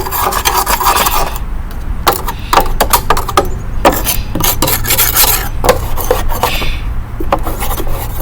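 Scraping and rubbing by hand: irregular short strokes and knocks over a steady low hum.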